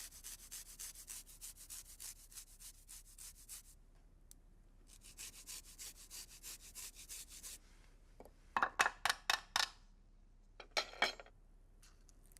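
Garlic cloves being grated against a fine rasp grater: two runs of quick, hissy rasping strokes at about five a second, then a few louder, fuller scrapes near the end.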